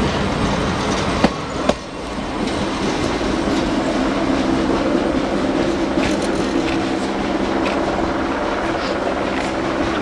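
Old passenger coaches of a steam-hauled train rolling past on the track, their wheels clacking sharply over rail joints a few times in the first two seconds, followed by a steady rumble as the train pulls away up the grade.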